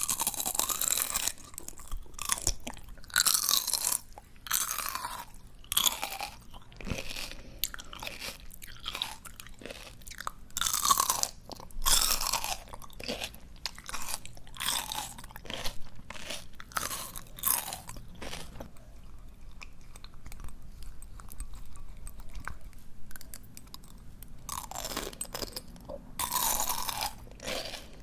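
Close-miked crunching and chewing of crisp, juicy raw greens, with bursts of crunches every second or so. The crunching eases off for a few seconds past the middle, then picks up loudly again near the end.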